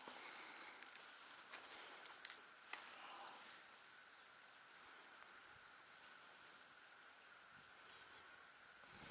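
Faint outdoor ambience over calm water: a steady soft hiss, a few distant small-bird chirps, and several sharp clicks in the first three seconds.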